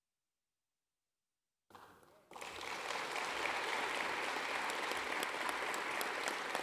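Audience applauding, cutting in suddenly about two seconds in and then holding steady.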